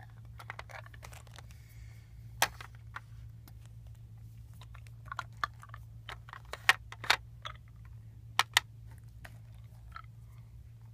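Plastic toy pieces clicking and knocking as small figurines and parts of a plastic playset are handled, in irregular taps with a few sharper knocks, the loudest a little after two seconds in, around seven seconds and twice at about eight and a half seconds. A steady low hum sits underneath.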